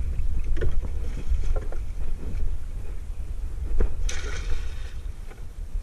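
Wind rumbling on the microphone aboard a small wooden outrigger fishing boat, with a few knocks as hands work along the boat's side and a short rush of noise about four seconds in.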